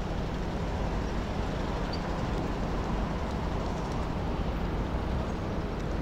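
Steady road traffic noise at a busy city junction: a continuous low rumble of vehicles, with no single event standing out.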